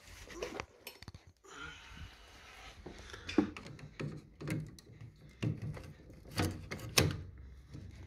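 Metal clicks and sharp knocks as long-nose pliers are picked up from among other tools and then grip and work at a rusted steel retaining clip inside a gas combi boiler, the clip stuck fast with rust. The loudest knocks come about three and a half seconds in and again around six and a half to seven seconds.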